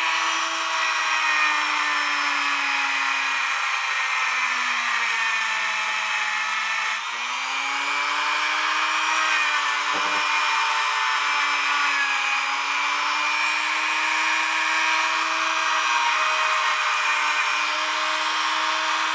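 Small electric rotary tool or polisher running steadily at a high whine. Its pitch sags for a few seconds about halfway through and then comes back up, as when a part is pressed against it. A short knock sounds about ten seconds in.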